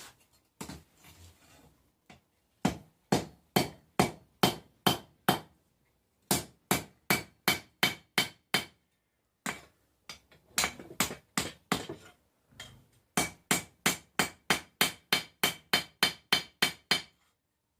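Hand hammer striking hot 1080 high carbon steel on an anvil while forging a knife blank: several runs of steady blows, about three a second, with short pauses between, each blow ringing.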